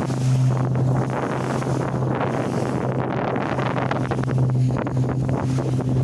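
Small boat's motor running with a steady low hum, with wind buffeting the microphone and water rushing past the hull.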